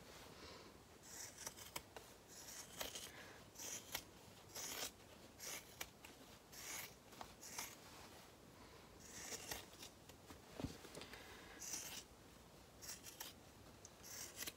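Large fabric shears snipping through the seam allowance of a bag's fabric lining, trimming it down. A run of short, crisp cuts comes at an uneven pace, roughly one a second.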